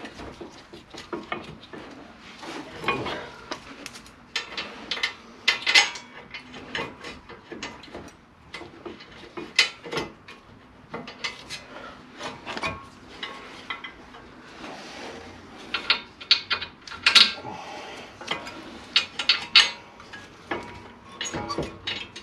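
Irregular small metallic clinks and scrapes of brake caliper bolts being handled and started by hand into the caliper mounting at the wheel hub.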